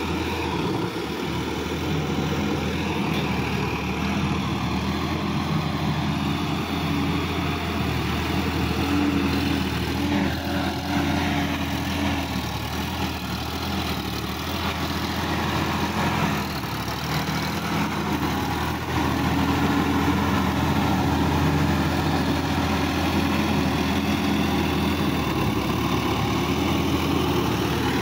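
Sonalika DI-50 RX tractor's diesel engine running steadily as it works a flooded, muddy paddy field, its note shifting a little a couple of times and growing slightly louder in the later part.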